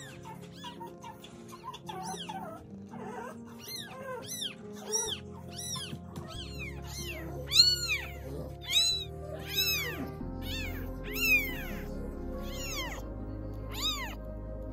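Very young kitten mewing over and over in high, thin cries that rise and fall. The cries are faint at first and grow louder and closer together from about four seconds in. Background music with a steady low bass plays underneath.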